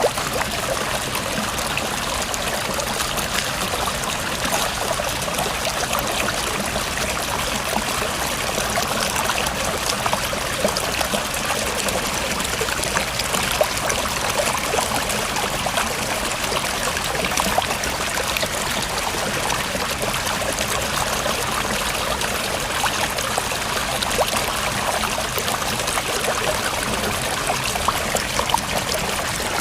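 A river flowing, its water running and splashing steadily with a constant rush and fine trickling detail.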